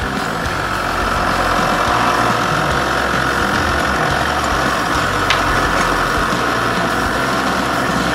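A small lathe's motor running steadily, a constant hum with a whine on top.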